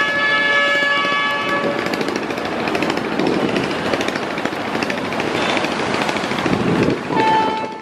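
A river passenger launch's horn sounds a chord of steady tones, cutting off about two seconds in. It gives way to a rapid rattling engine noise with water rush, and another horn blast begins near the end.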